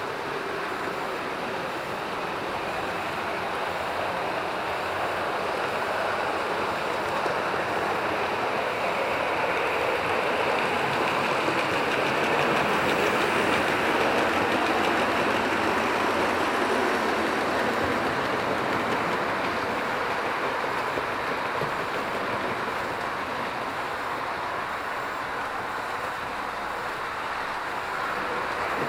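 Model railway train running on track: a steady rolling whirr of wheels and motor that swells about halfway through as a small tank locomotive hauling a wagon passes close by, then eases off.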